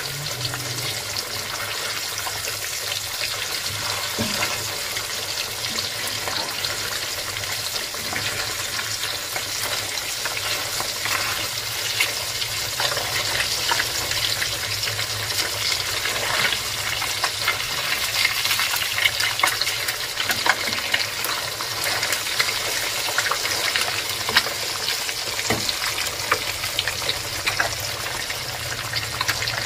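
Fish pieces shallow-frying in hot oil in a pan: a steady, dense sizzle full of small crackles and pops, growing a little louder and busier after the first ten seconds or so.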